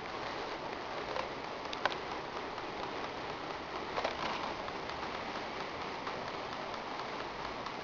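Steady rain-like patter of water leaking into a room through the roof, with a few louder drips landing about one, two and four seconds in.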